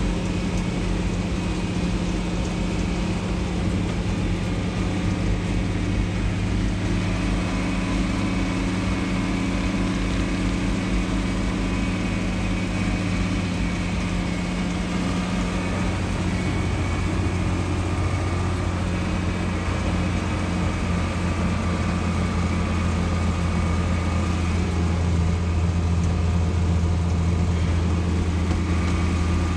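Farm tractor engine running steadily as the tractor drives along, heard from inside its cab. The low drone grows stronger in the second half.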